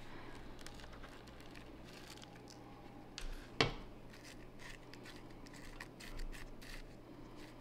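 Faint scratching and rustling of potting medium being worked around a begonia's roots in its new container, with scattered light ticks and one sharper click about three and a half seconds in.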